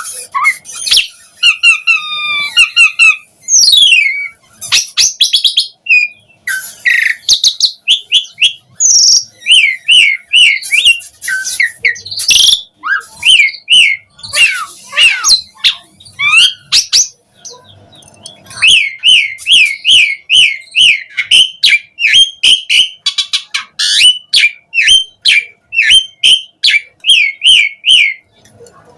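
Asian pied starling (jalak suren) singing vigorously: a varied stream of whistles, gliding notes, chirps and sharp clicks. From about two-thirds of the way in it settles into a long series of repeated short whistled notes, about two a second.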